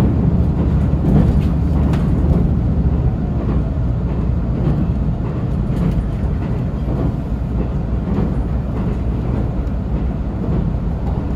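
Resort Shirakami diesel train running along the line, heard on board: a steady low rumble of engine and wheels on rail, with a few faint knocks in the first half.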